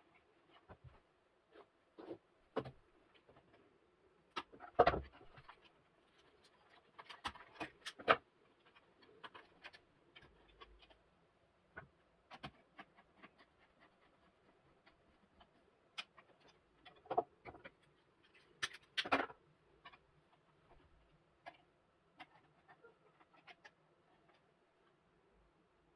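Hand wiring work: irregular small clicks, scrapes and taps of wire ends and terminal screws being worked into a plastic push-button station and contactor, with hand tools set down on a wooden bench. A few louder knocks come about five, eight, seventeen and nineteen seconds in.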